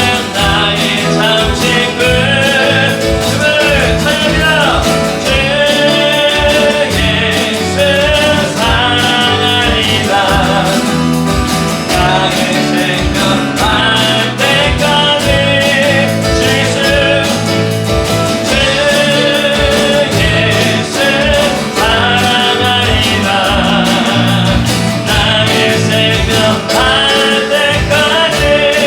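A live worship band playing a praise song, with singing over acoustic guitar, keyboard, bass guitar and electronic drums keeping a steady beat.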